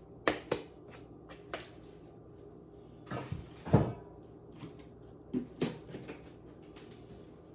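Objects being handled and set down on a surface: scattered light knocks and clicks, with a louder cluster of bumps a little past halfway.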